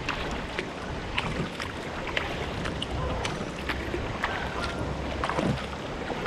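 Kayak on a moving river: paddle splashes and small knocks scattered over a steady rush of water and wind on the microphone.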